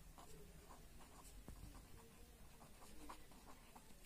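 Pen writing on paper: faint scratching of the strokes as words are written out.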